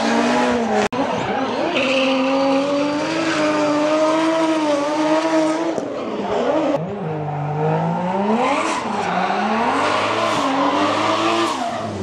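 Drift cars' engines running at high revs, held fairly steady at first, then rising and falling sharply in the second half as the cars slide through the corner, over a hiss of tire squeal.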